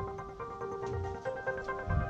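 Background music: steady electronic notes over a soft low pulse.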